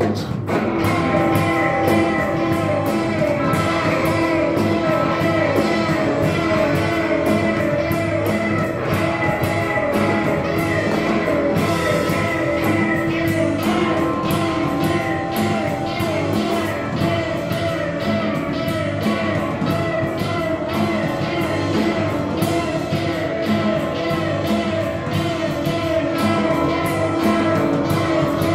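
Live rock band playing with drums, electric guitar and singing, held notes sounding over a steady drum beat.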